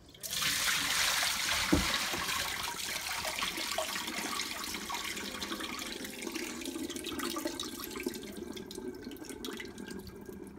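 Rice-rinsing water being poured out of a rice cooker's inner pot into a sink. It starts suddenly, is heaviest for the first few seconds, then thins to a trickle as the pot empties and the rice drains.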